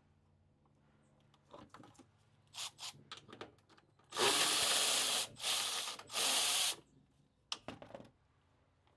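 A ratchet wrench working a bolt loose in three loud runs, each under a second, after a few light clicks and knocks from handling the tool and parts.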